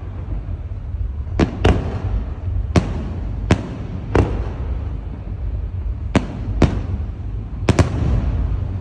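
Aerial fireworks bursting: a string of about nine sharp bangs at uneven intervals, some in quick pairs, over a continuous low rumble.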